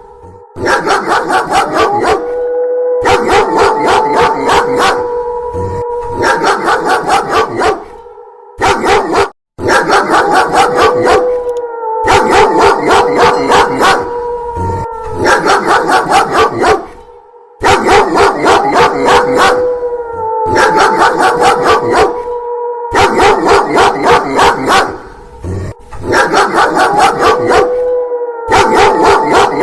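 A dog barking rapidly and loudly, several barks a second, with a long wolf howl rising and then holding its pitch over the barking; the mix repeats in stretches separated by brief gaps.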